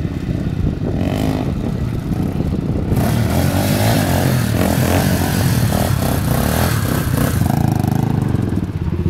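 Sport ATV engine revving hard, pitch rising and falling. It gets much louder about three seconds in and drops back near the end.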